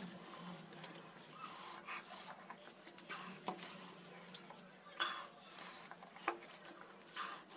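Faint eating sounds: fingers squishing rice mixed with mutton curry on a banana leaf, chewing and mouth noises, with short breaths between mouthfuls from the heat of the very spicy curry.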